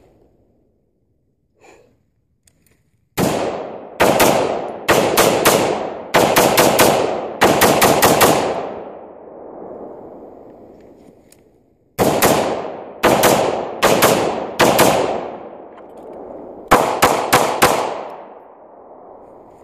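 AR-15 rifle fired in quick strings of shots, each shot trailing off in an echo. The shooting comes in two flurries, the second starting about three seconds after the first dies away.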